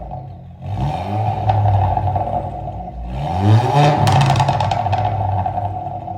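Volkswagen Golf Mk7 1.2 TSI turbocharged four-cylinder engine revved twice through a decatted, resonator-deleted dual exhaust, with a rapid run of pops and crackles as the revs drop after the second blip.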